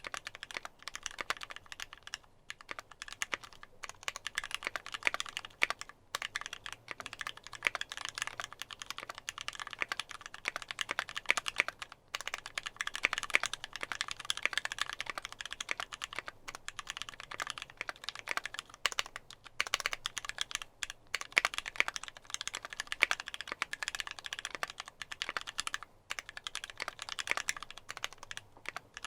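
Continuous fast typing on a mechanical keyboard with lubed Gateron Ink linear switches (ThicThock MP 68 progressive springs, aluminium plate, GMK keycaps): dense, irregular keystroke clicks and bottom-out clacks, with brief pauses now and then.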